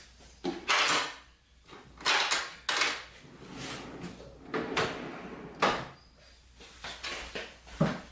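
A string of about ten irregular clunks and short scraping sounds, spaced unevenly.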